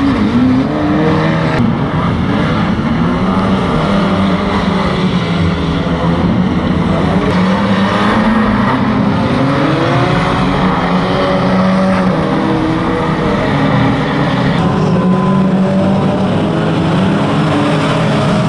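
Several pre-1980 banger racing cars' engines running together, pitches rising and falling as they rev and lift off in the pack.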